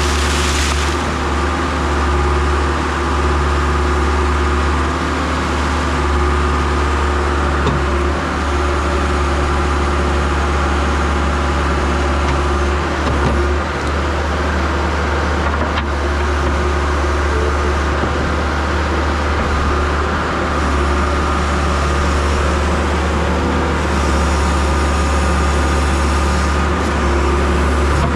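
Diesel engine of a John Deere 310SE loader backhoe running steadily, a constant low rumble with a faint click about two-thirds of the way through.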